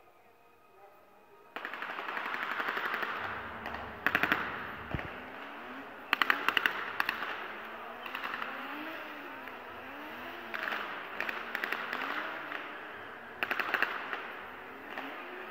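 Staged machine-gun fire in a car stunt show: about five short bursts of rapid cracks over a steady din of stunt-car engines and tyres that starts suddenly after a quiet opening second and a half. Wavering rising-and-falling tones run under the middle stretch.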